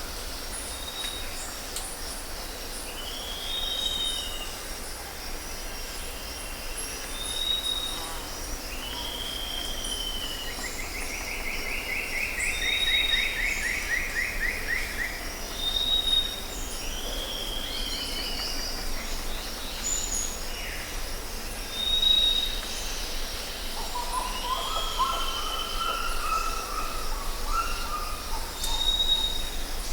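Tropical jungle ambience: several birds calling, with short whistled notes repeating every second or two, a fast rattling trill from about ten to fifteen seconds in, and a lower warbling call near the end, over a steady high-pitched insect chorus.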